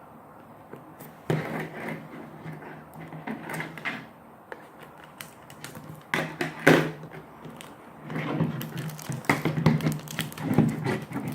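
Hands working at a sealed plastic toy package, a stubborn wrapper that is hard to tear open, making irregular crinkling, rustling and sharp crackles. It starts about a second in and gets busier and louder in the second half.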